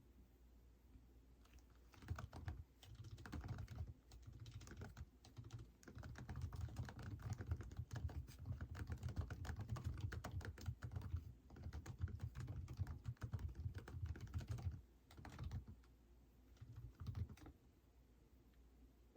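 Typing on a computer keyboard: quick runs of key clicks broken by short pauses, starting about two seconds in and stopping a little before the end.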